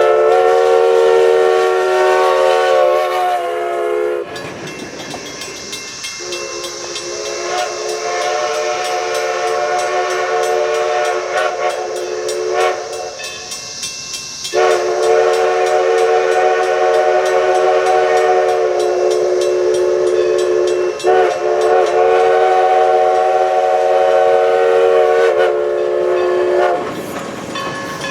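MD Whistles Nathan five-chime steam locomotive whistle sounding a steady multi-note chord in four long blasts separated by short breaks. A steady high hiss runs under it from about four seconds in.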